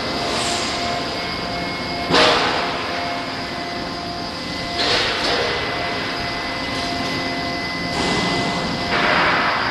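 Hydraulic flying cut-off shear on a U-profile forming line running: a steady machinery hum with four louder surges of noise, the sharpest and loudest about two seconds in and others near five, eight and nine seconds.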